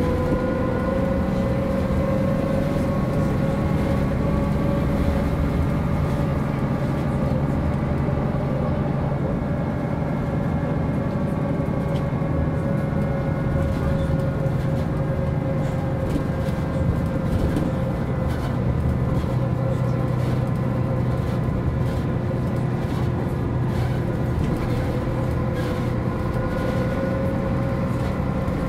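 MAN NG 262 articulated bus running steadily, its engine and drivetrain giving a constant whine that drifts only slightly in pitch over a low drone.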